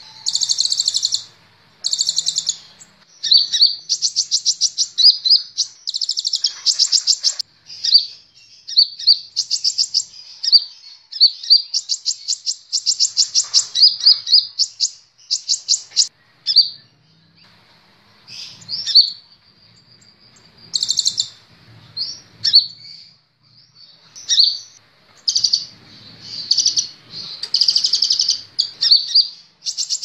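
Van Hasselt's sunbird (kolibri ninja) singing: high, fast trills in bursts of about a second, broken by short gaps and single sharp notes.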